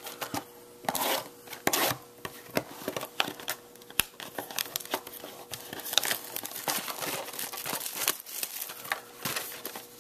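Plastic shrink wrap being cut and torn off a small cardboard trading-card box, crinkling and tearing in irregular rustles, with a sharp click about four seconds in.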